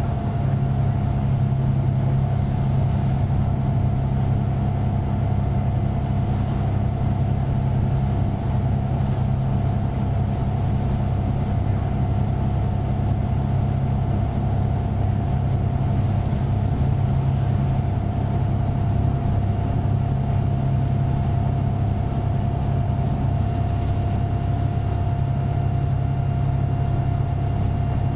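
Van Hool AG300 bus with a DAF PR228S diesel engine running steadily, heard from inside the passenger cabin: an even low drone with a thin steady whine above it and the odd faint rattle click.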